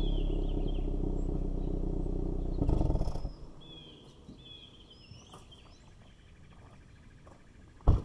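2019 Hyundai Veloster N's turbocharged 2.0-litre four-cylinder idling through its factory exhaust. It swells briefly about three seconds in and then cuts off suddenly as the engine is shut off. Birds chirp faintly afterwards, and a single loud footstep crunches on gravel near the end.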